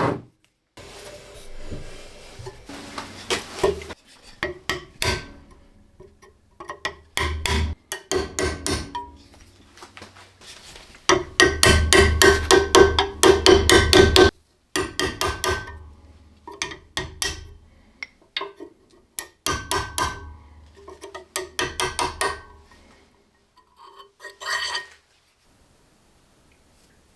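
Hammer blows on metal in runs of quick taps, each strike ringing, with a long fast run about halfway through, as an old long flathead screwdriver is knocked apart.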